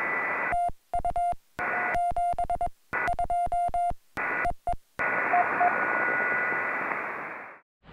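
Portable HF ham radio transceiver on Morse code (CW): receiver hiss with a steady beep tone keyed on and off. The audio repeatedly drops out in short gaps, then fades away near the end.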